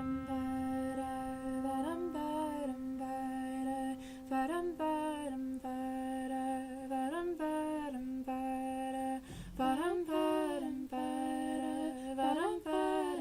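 A woman's voice humming a slow melody: long held notes with short upward slides between them.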